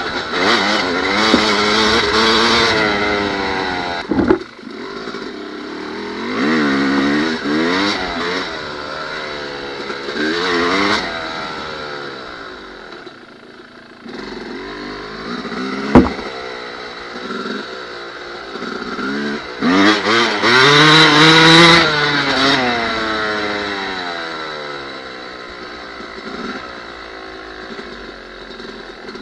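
Yamaha dirt bike engine revving up and down as it is ridden over rough grass, its pitch repeatedly climbing under throttle and dropping back as the rider eases off. Two sharp knocks stand out, about four seconds in and louder again past the middle.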